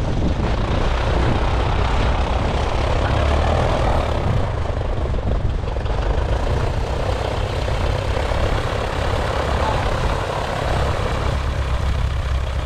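Zenith CH-200 light plane's engine and propeller running at low taxi power as it taxis on skis over snow, a steady drone with a strong low rumble.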